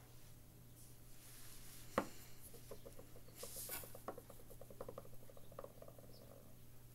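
A single click, then a brief rustle and a quick run of faint scratchy ticks as fingers rub through hair close to the microphone, over a low steady hum.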